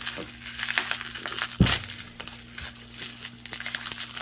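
Plastic bubble wrap crinkling and crackling as it is pulled off a glass jar candle, with a dull thump about one and a half seconds in. A faint steady hum sits underneath.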